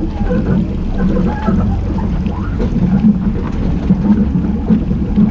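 Jeep Cherokee Trailhawk's engine running at low speed as it crawls down a rocky, rutted trail, a steady low rumble.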